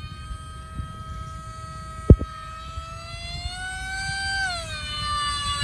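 Radio-controlled model Su-30 jet's motor whining in flight, one steady high note with overtones that creeps up in pitch and then falls away about four and a half seconds in. A single sharp knock about two seconds in, with a low rumble underneath.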